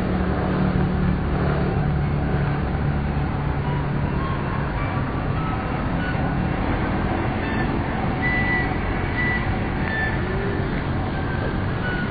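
Steady city background noise with a low vehicle drone from road traffic, strongest in the first few seconds, and a few brief high tones later on.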